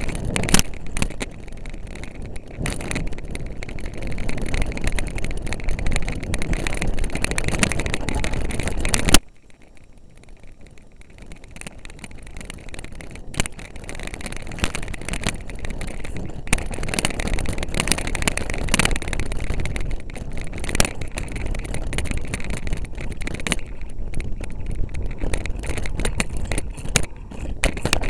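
Mountain bike riding over rough, bumpy moorland ground, heard through a camera mounted on the bike or rider: a continuous rumble of tyres and wind on the microphone with frequent rattles and knocks. About nine seconds in the noise drops sharply, then builds up again.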